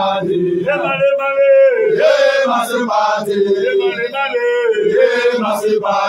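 Voices singing a chant, led by one strong voice holding long notes that rise and fall.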